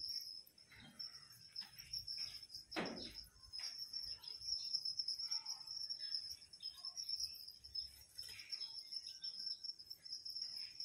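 Crickets chirring steadily in a high, continuous buzz, with scattered light knocks and rustles over it; the loudest knock comes about three seconds in.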